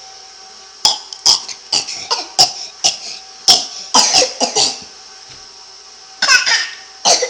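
A person coughing in a rapid run of about a dozen short coughs, then a pause and a second short fit of coughs near the end.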